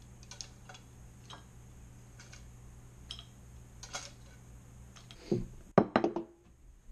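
Light clicks and clinks of metal tongs against a steel steamer pot as steamed crayfish are lifted out, over a steady low hum. About five seconds in, a few loud knocks as a soda can and a bowl are set down on a wooden table.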